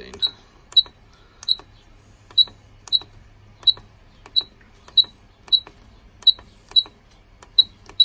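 Pertronic F100A fire alarm control panel's keypad beeping at each press of its increment key: about a dozen short, high beeps, each with a click, at a bit under two a second, as the test device number is stepped up.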